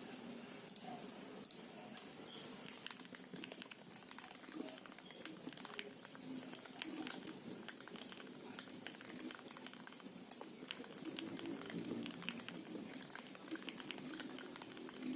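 Continuous fast typing on a Tecware Phantom L mechanical keyboard with lubed Outemu Red low-profile linear switches, a dense run of short clacks with a low thud under each keystroke, picked up by a phone's built-in microphone.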